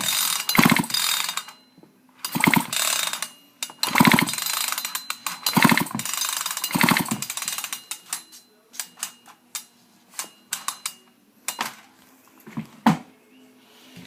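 Husqvarna chainsaw's recoil starter cord pulled repeatedly, about every second and a half, with the engine spinning over without firing while its spark plug is grounded for a spark check. After about seven seconds the pulls stop, leaving scattered light clicks and taps of handling.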